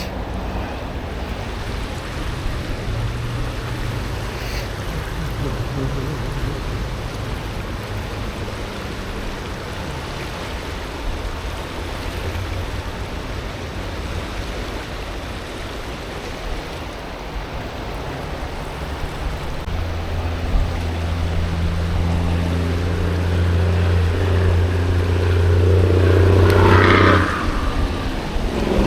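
Steady outdoor rushing noise with a low motor hum. Over the last several seconds a passing engine grows louder, peaks, then drops off near the end.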